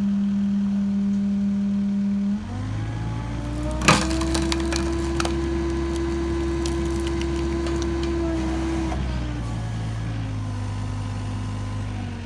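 Skid steer engine running as its 45-ton hydraulic log splitter works. About two seconds in the engine note drops as the ram takes the load. About four seconds in there is a loud crack as the log splits, followed by a run of smaller splintering cracks for several seconds, and the engine eases off near the end.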